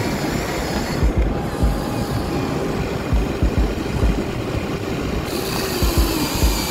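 Wind buffeting the microphone in low gusts, with the faint whine of a Huina remote-control toy excavator's electric motors as its boom and bucket move down into the sand.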